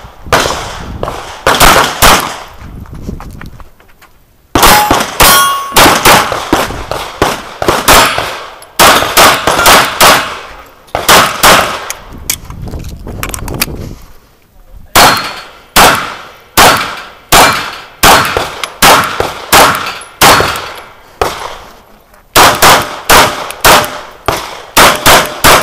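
HK USP pistol fired in quick strings of shots, a fraction of a second apart, with breaks about 4 and 14 seconds in and a shorter one near 22 seconds. Several shots leave a ringing metal clang behind them.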